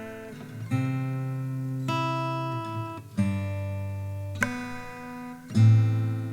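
Music: an acoustic guitar strumming chords at an even pace, about one every second and a bit, each chord ringing on and fading before the next.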